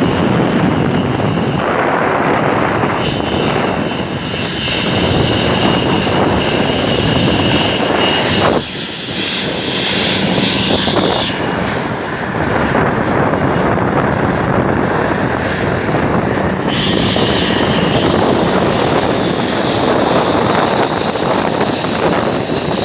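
Boeing 777-200ER's jet engines running at taxi power as the airliner taxis past: a loud, steady rush with a thin high whine.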